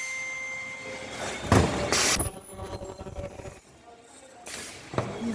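Ultrasonic welding machine for polypropylene corrugated sheet running a weld cycle. A steady high tone sounds at the start, then a short, loud hiss of air comes about two seconds in. Mechanical knocks follow near the end.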